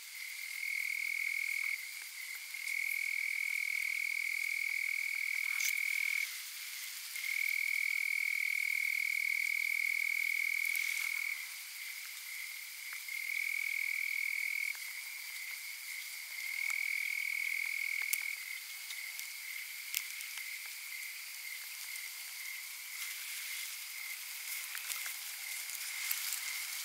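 High, steady trilling calls from an evening animal chorus, coming in bouts of one to four seconds with short gaps. The trills grow fainter and more continuous in the second half, with a few faint ticks.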